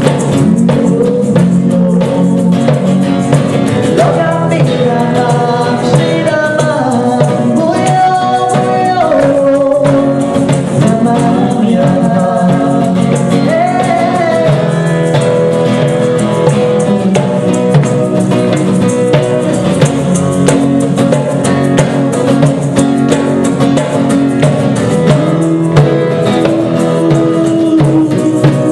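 A woman singing a melody into a microphone over a strummed acoustic guitar in a live performance.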